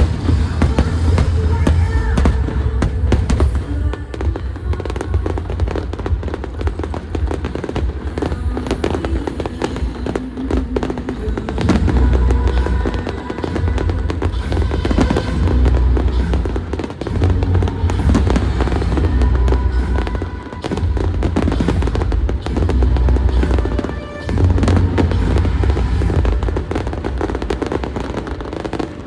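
Aerial fireworks bursting and crackling in rapid succession, with heavy low booms, over the show's loud accompanying music soundtrack.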